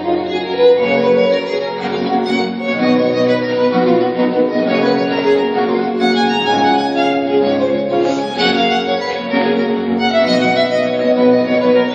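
Instrumental dance music, a violin and other strings playing a continuous tune.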